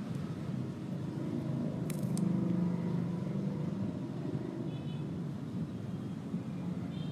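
Steady low background rumble, with a short sharp click about two seconds in.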